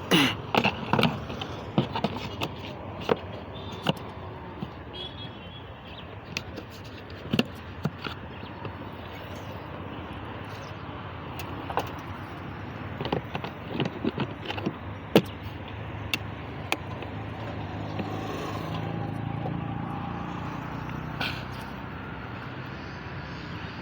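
Scattered sharp clicks and knocks of parts being handled while the BMW 540i's air cleaner is being worked on. A low rumble swells in the second half, like a vehicle running.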